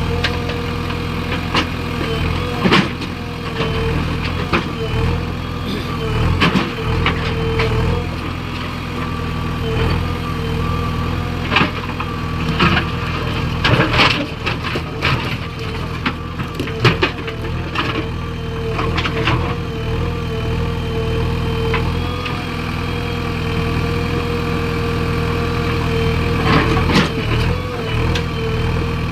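Heavy diesel engine of working machinery running steadily, with sharp knocks and clatters coming every few seconds, busiest in the middle and near the end.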